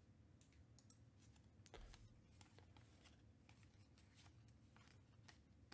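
Faint rustling and flicking of baseball trading cards being handled and flipped through, a scatter of soft ticks with one slightly louder one about two seconds in.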